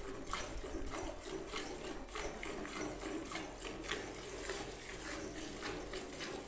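Cow being milked by hand: rhythmic squirts of milk hitting a steel bucket, roughly two a second.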